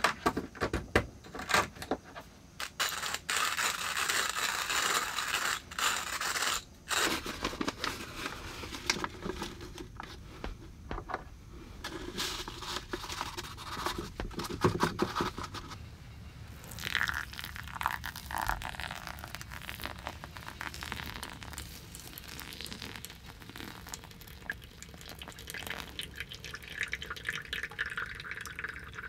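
Hand coffee grinder being cranked, its burrs crunching through beans with a dense, clicking scrape for the first seven seconds or so. Then softer rustling and handling as a paper filter is fitted into a glass dripper, and near the end hot water trickles onto the coffee grounds.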